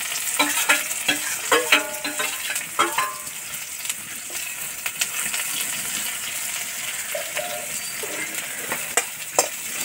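Sliced onions dropping into hot oil in a kadai and sizzling as they fry, with a steel spoon clinking and scraping against the pan while they are stirred. The clinks are thick for the first few seconds and then thin out, leaving a steady sizzle.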